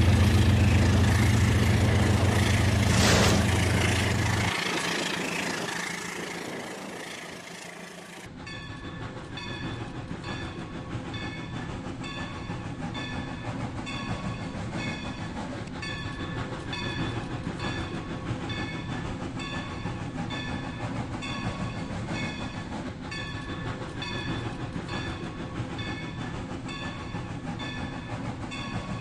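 Battery-powered Rail King toy train set running on its track, with a steady, quickly repeating pattern of short clicks and tones. For the first few seconds a loud low hum fades away.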